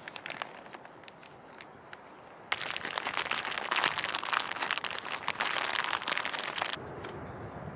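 Crinkly packet of cinnamon-sugar crumb topping being squeezed and shaken out, a dense crinkling that starts about two and a half seconds in and stops abruptly near the end. A few light clicks come before it.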